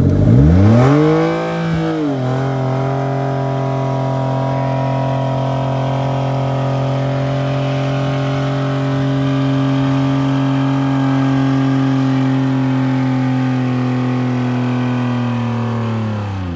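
Ford Escape engine, run with its oil drained, held at wide-open throttle. It revs up over the first two seconds and then runs at a steady high pitch. Near the end its pitch falls away as the oil-starved engine seizes.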